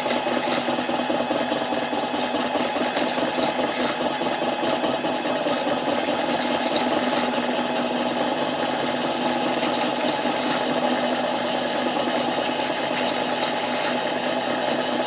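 7x10 mini lathe running steadily, its motor and gears giving a constant whine as it turns a Husqvarna 372 chainsaw cylinder that is being machined true.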